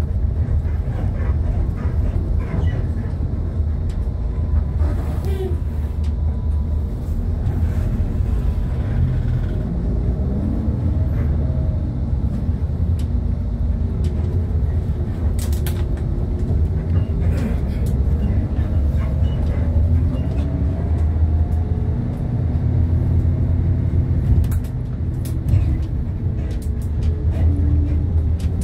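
Cabin of a moving bus: a steady low rumble of engine and road noise, with a few sharp knocks and rattles from the rough road surface. Faint music with a wavering melody sounds along with it in the second half.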